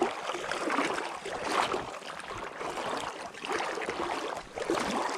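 Spinning reel being cranked to retrieve a spinner: a whirring hiss that rises and falls with the turns of the handle, stopping suddenly near the end.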